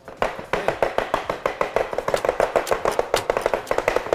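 Kitchen knives rapidly chopping cabbage on wooden cutting boards: a fast, steady run of sharp knocks, several a second, starting just after the beginning.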